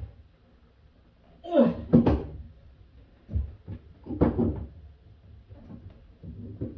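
Knocks and clunks of work inside a bathroom vanity cabinet under the sink, with the cabinet and its door being bumped: a couple of clusters about a second and a half in and again near four seconds, with lighter taps later.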